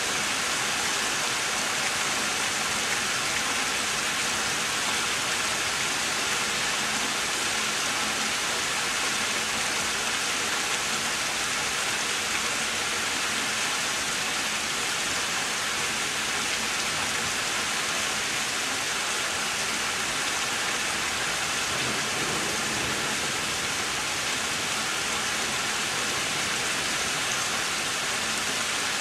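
Rain from a severe thunderstorm falling steadily, an even, constant hiss.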